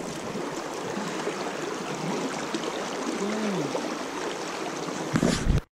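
River current flowing steadily. Just after five seconds in, a couple of loud low thumps, and then the sound cuts off suddenly.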